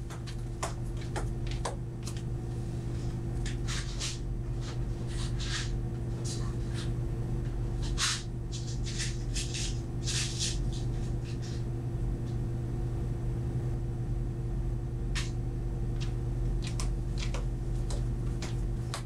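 Steady low room hum with scattered light clicks and knocks, thickest through the middle and again near the end: someone searching through storage for screws.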